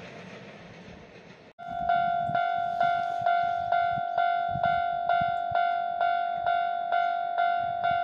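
Japanese level-crossing warning bell sounding its 'kan-kan' alarm: a pitched ding struck a little over twice a second, each strike fading before the next, signalling an approaching train as the gate arm comes down. Before it starts, about one and a half seconds in, a steady rushing noise cuts off abruptly.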